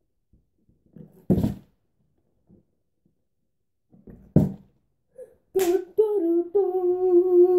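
Plastic water bottle flipped and landing on the floor with two thuds, about a second and a half in and about four and a half seconds in, the second landing upright. Then a boy's voice holds a long sung, celebrating note.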